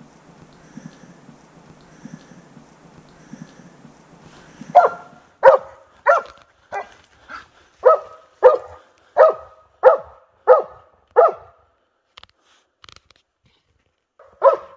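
Leashed hunting dog barking in a quick series, about eleven barks a little over half a second apart starting about five seconds in, then a single bark near the end. It is barking on a fresh track that the handler strongly suspects a bear has crossed.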